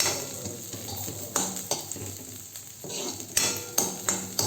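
Shallots and curry leaves frying in hot oil with popped mustard seeds, sizzling, while a spoon stirs them in the pan. A few sharp clicks and scrapes of the spoon against the pan come through, more of them in the second half.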